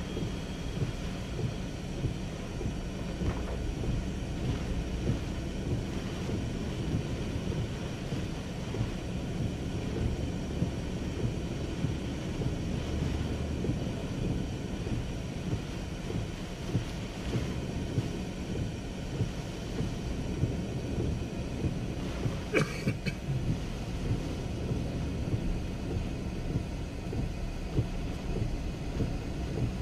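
Hurricane-force wind and rain: a steady low rumble of wind buffeting the microphone, with frequent gusty peaks. A brief sharp clank or squeal about three-quarters of the way through.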